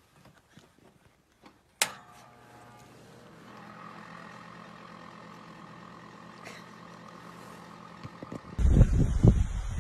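An electric radiant space heater switched on with a single sharp click, then a steady hum as its elements heat up. Near the end a much louder rumble of wind on the microphone cuts in.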